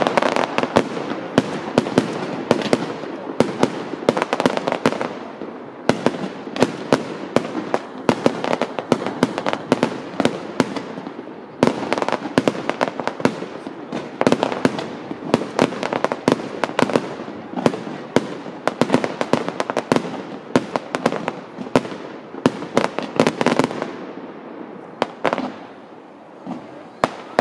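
Fireworks display: a dense, continuous barrage of bangs and crackling bursts, easing off somewhat near the end.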